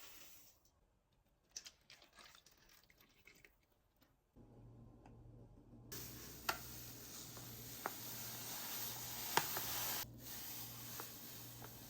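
Handling sounds from making a body polish: soft squishing and scraping of the scrub mixture, with a few sharp clicks. A faint steady low hum sets in about four seconds in, and a brighter hiss runs from about six seconds in until it drops off near ten seconds.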